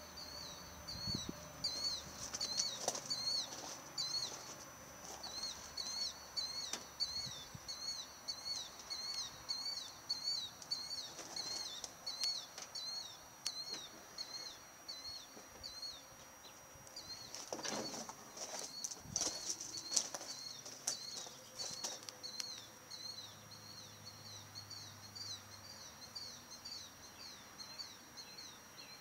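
Outdoor ambience: a short high chirp repeated about twice a second over a thin steady high whine, with a few clicks and rustles about two-thirds of the way through.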